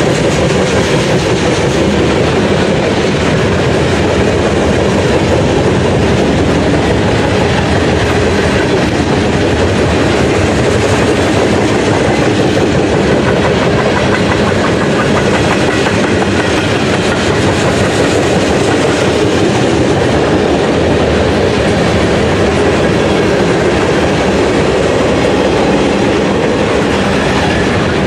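A BNSF manifest freight train's cars (boxcars, lumber flatcars and tank cars) rolling steadily past at trackside: a continuous, even noise of steel wheels on rail.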